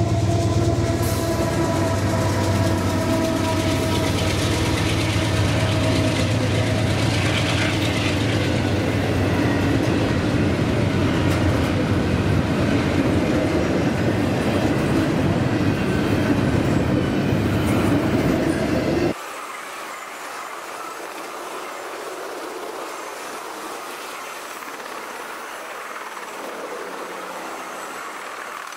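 CSX double-stack intermodal freight train passing: a loud, heavy rumble with several steady tones above it, which drops suddenly about two-thirds of the way in to the lighter, steady rolling noise and wheel clatter of the container well cars going by.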